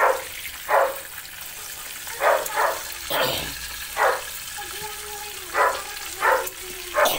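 A dog barking repeatedly, about nine short barks in singles and quick pairs, over the steady sizzle of fish deep-frying in oil.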